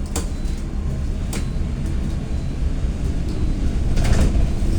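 Steady low engine and road rumble inside a running bus, with a few brief knocks or rattles and a short noisier burst near the end.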